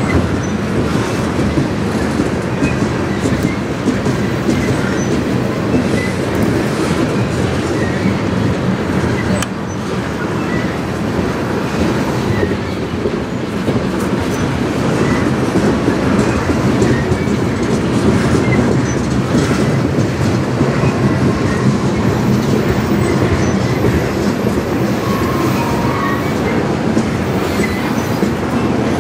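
Tank cars of a CN manifest freight train rolling slowly past, a steady noise of steel wheels on the rails as the train crawls through a speed restriction.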